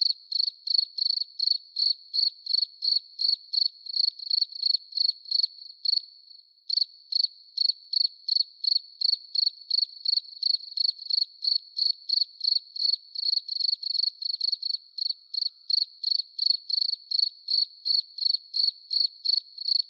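Cricket chirping in an even rhythm of about three high chirps a second, pausing briefly about six seconds in.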